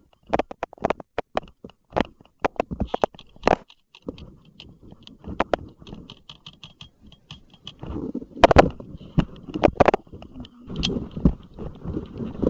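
Footsteps crunching on dry desert ground, a quick uneven run of crunches that thins out for a few seconds and then comes back louder.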